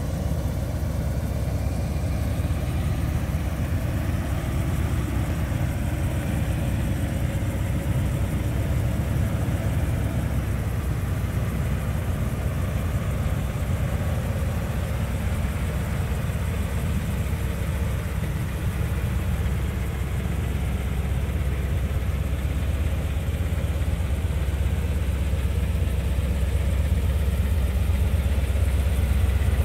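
A 1981 Chevrolet Corvette C3's carbureted 350 cubic-inch (5.7 L) V8 idling steadily with a low rumble, growing a little louder near the end.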